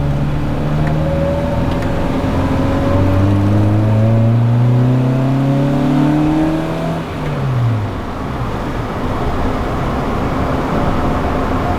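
1998 Honda Civic's four-cylinder engine pulling under acceleration, its pitch rising for several seconds, then dropping sharply at an upshift about seven seconds in, followed by steady engine and road noise, heard from inside the cabin.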